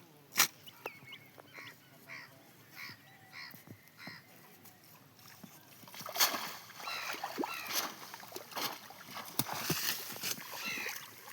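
Waterfowl honking in a series of short calls, with water splashing from about six seconds in. A single sharp click comes about half a second in.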